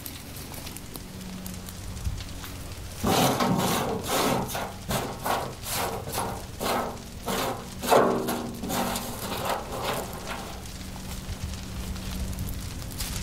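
Dry twigs and sticks scraped and dragged across the bottom of a plastic tub as they are gathered up by hand, a run of quick scraping strokes about two a second that starts a few seconds in and stops near the end, followed by lighter rustling of sticks being piled.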